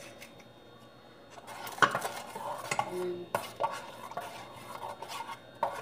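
Metal spoon stirring a thick tomato-paste sauce in a stainless steel pot, with a few sharp clinks of the spoon against the pot. The stirring begins after a quiet first second or so.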